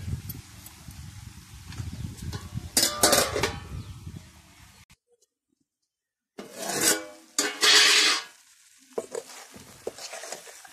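Metal cookware clatter: a steel plate lid and a metal spatula knocking and scraping against a kadai of frying chicken, loudest about 3 seconds in and again around 7 to 8 seconds. The sound drops out completely for about a second and a half between the two bursts.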